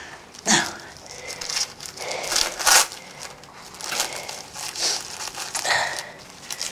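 Plastic wrapper of a sanitary pad crinkling in several short bursts as it is handled and unwrapped.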